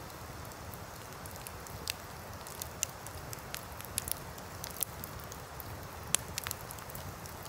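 Wood campfire burning and crackling, with a dozen or so sharp pops from the logs scattered irregularly over a steady low rushing background.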